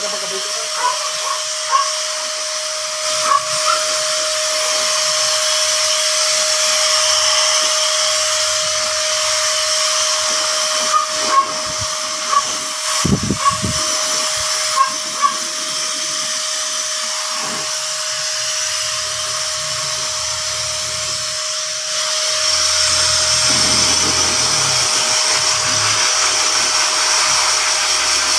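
Pet blower dryer running steadily through its hose: a loud rushing air hiss over a steady motor whine, with a few brief squeaks around the middle.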